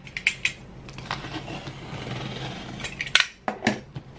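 A cardboard package being handled and opened on a table: scattered clicks and knocks, with a soft scraping rustle through the middle and a few louder knocks near the end.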